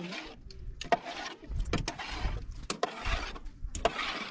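Liquid scooped with a cup from an aluminium pot: a metal knock about once a second, five in all, each followed by a swish of pouring or sloshing.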